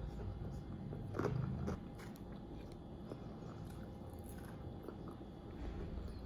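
A person biting and chewing hot fried chicken, eaten with a fork, with a louder bite a little over a second in.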